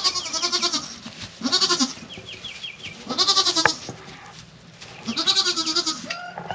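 Pygmy Kiko cross goats bleating: four wavering calls, each under a second long, spaced one to two seconds apart. This is the mother doe calling for her kid.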